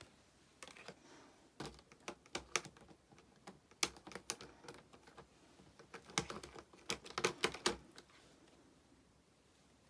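Irregular sharp clicks and taps of hard plastic being handled, Prism Stone toy pieces and their trunk case, stopping about two seconds before the end.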